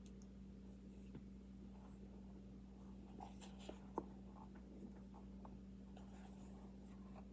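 Faint sounds of baby powder being eaten: soft rubbing and small mouth clicks, the sharpest about four seconds in, over a steady low hum.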